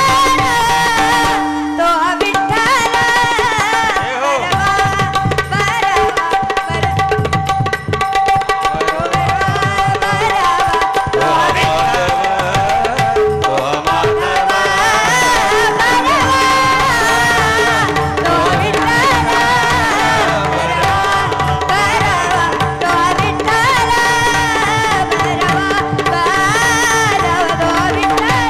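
Devotional bhajan music: tabla keeps a steady rhythm under held and ornamented melodic notes, with a brief break about two seconds in.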